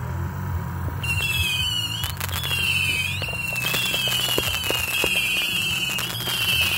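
A fireworks finale: from about a second in, many whistling shells go up at once, their high tones wavering and overlapping, amid a steady run of bangs and crackles.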